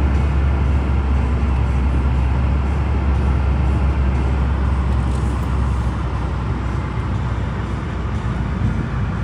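Steady low rumble of a vehicle in motion, easing slightly in level about six seconds in.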